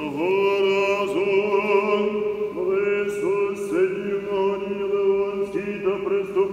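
Sung church chant as background music: a melody with sliding note onsets over a held low drone.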